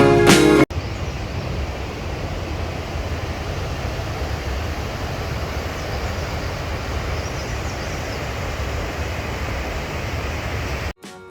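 Steady outdoor rushing noise, heaviest in the low range, with no clear tone or rhythm. Acoustic guitar music cuts off under a second in.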